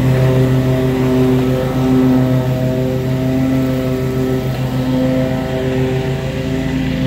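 Lawn mower engine running steadily, a low hum with a rapid flutter.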